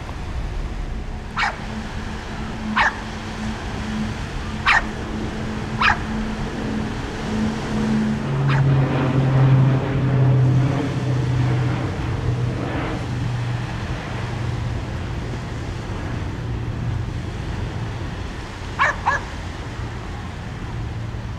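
Short, sharp animal calls, four in the first six seconds and then a quick double call near the end, over wind and a steady low hum.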